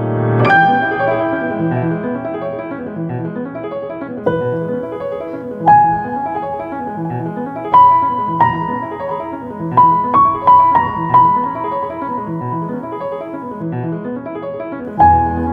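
Music: a slow piano melody, single notes struck and left to ring, with a quick run of notes past the middle, over a steady background that swells and fades about once a second.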